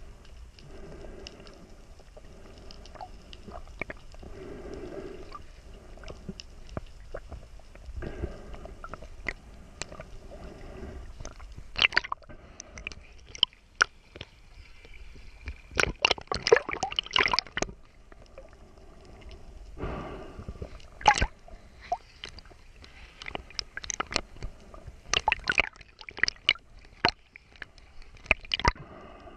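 Seawater sloshing and splashing around a waterproof camera housing as it bobs at the surface and dips just under it, with irregular sharp clicks and crackles that come in clusters, loudest about halfway through.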